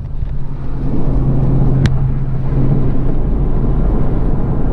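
Road and engine noise inside a vehicle's closed cab at highway speed: a steady low drone. There is a single sharp click about two seconds in.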